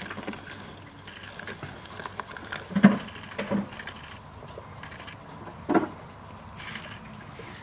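G-scale model electric railcar rolling slowly on garden track and coming to a stop, with a few soft knocks, the loudest about three seconds in and another near six seconds.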